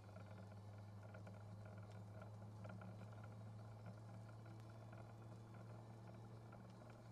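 Faint, steady low drone of a car cruising at a constant speed, heard from inside, with a few light ticks on top.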